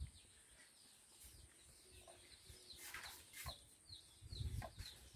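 Faint chicken clucks and short chirps in the background, with a few soft low thumps near the end.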